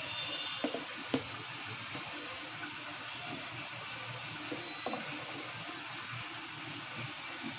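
Steady background hiss with a few faint light clicks, about a second in and again near five seconds, of a spoon touching a steel tiffin box as ground cumin is spooned in.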